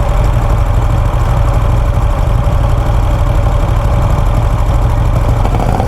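Vintage motorcycle engine idling steadily close by.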